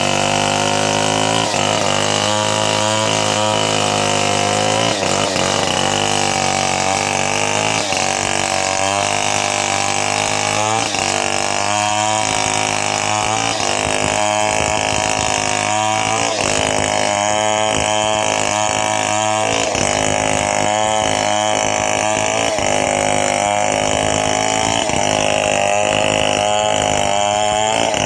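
Two-stroke chainsaw engine running continuously, its pitch rising and falling again and again as it works.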